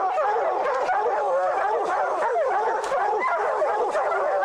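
A pack of bear hounds barking and bawling without a break, many dogs' voices overlapping, the baying of hounds holding a treed bear.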